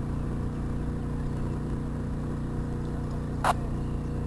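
Steady low mechanical hum like a running engine, with one short sharp click about three and a half seconds in.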